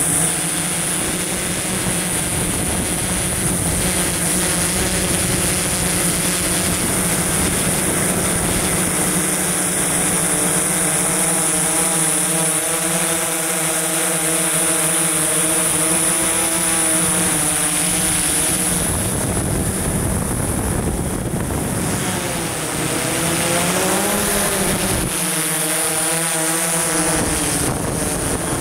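DJI S1000+ octocopter's electric motors and propellers buzzing steadily in flight, with a constant high whine over the hum. About two-thirds of the way through, the pitch of the hum dips and climbs back.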